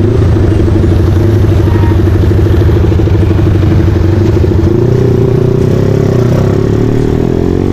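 Honda Tiger's single-cylinder four-stroke engine running at steady low revs as the bike creeps through traffic, heard from the rider's seat. Its pitch lifts a little about five seconds in.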